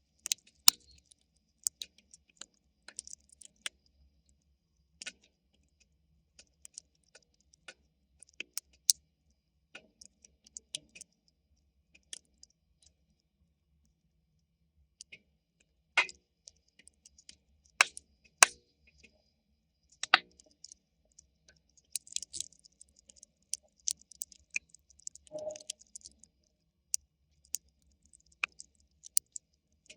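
Campfire crackling: burning wood giving irregular sharp pops and snaps, loud and soft, with quiet gaps between. A brief high hiss joins in a little past two-thirds of the way through.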